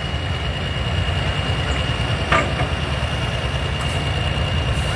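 Pulling tractor's engine idling with a steady low rumble after its run, with one sharp knock a little over two seconds in.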